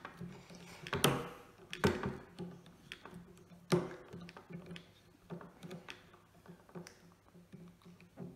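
Screwdriver turning out the lock screw of a side-by-side shotgun's sidelock: a few sharp metal clicks and taps, the strongest about one, two and three and a half seconds in, then smaller ones. A faint steady hum lies underneath.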